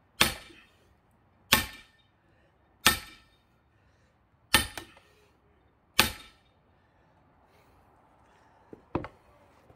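Heavy hammer striking an axe stuck in a pine log: five sharp, ringing blows about every second and a half, one with a quick rebound, then two lighter taps near the end.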